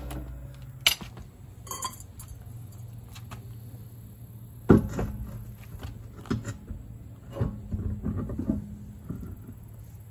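Scattered metallic clicks and clinks of a car wheel and its lug nuts being fitted and threaded on by hand, with one loud knock about halfway through.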